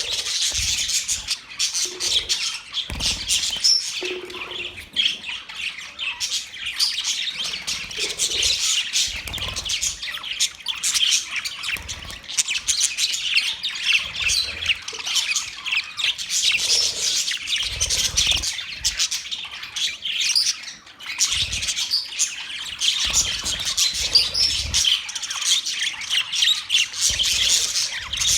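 Budgerigars chattering and chirping continuously, a dense run of quick high chirps and squawks, with a brief lull about 20 seconds in.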